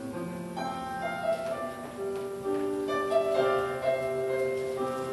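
Instrumental passage of a slow worship song: piano or keyboard chords over held string-like notes, changing every second or so, with no singing.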